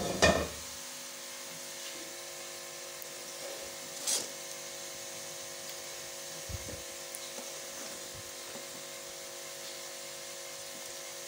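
A steady electrical hum, with a loud metal clatter right at the start and then a wooden spatula softly scraping and tapping as it spreads a sticky jaggery-and-sesame mixture in a metal tin, with one clearer scrape about four seconds in.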